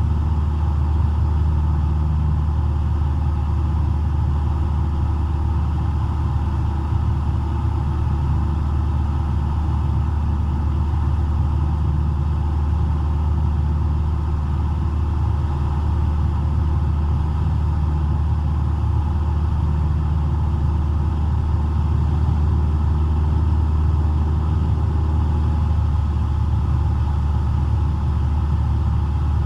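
Cessna 172's four-cylinder piston engine and propeller droning steadily in cruise, heard from inside the cockpit.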